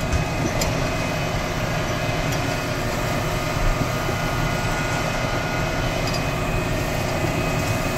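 John Deere 6155 tractor's diesel engine running steadily under load, heard from inside its cab, as it tows a tractor whose transmission is locked in park.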